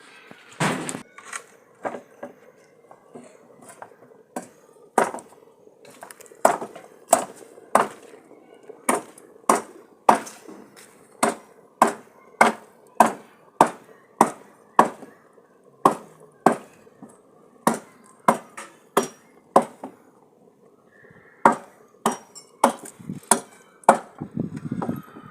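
A steady run of sharp chopping strokes, roughly one to two a second, with a short lull about three quarters of the way through.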